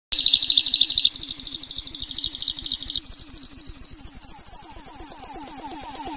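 A rapid, even trill of high bird-like chirps that steps up in pitch a few times along the way, with a low pulse beating at the same quick rate underneath.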